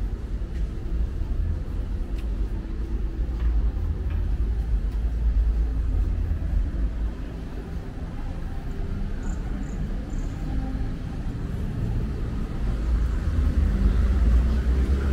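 Outdoor street ambience: a low, uneven rumble that grows louder near the end.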